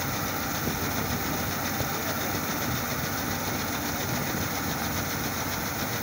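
Combine harvester running steadily while its unloading auger discharges threshed wheat grain in a continuous stream onto a pile.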